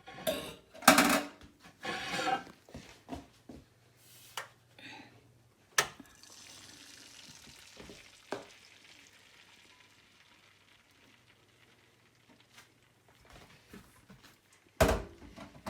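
Scrambled eggs frying in a buttered pan: a faint, even sizzle, with a utensil scraping and clattering in the pan, loudest in the first couple of seconds, and a few single sharp knocks.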